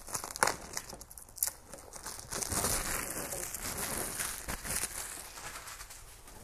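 Clear plastic wrapping crinkling as it is pulled off a new headlight assembly, with a few sharp clicks in the first couple of seconds.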